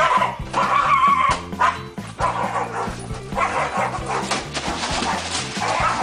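Small white dog barking repeatedly in quick, high yaps over upbeat background music.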